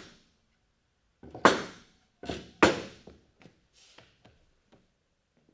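Heavy cut timber blocks being set down onto a stack of timbers: a few solid wooden thunks in the first three seconds, then several lighter knocks as the pieces settle.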